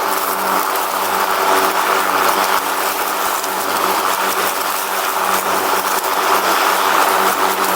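Riding lawn mower's engine running at a steady speed as the mower drives along, a constant mechanical drone with small wavering in level.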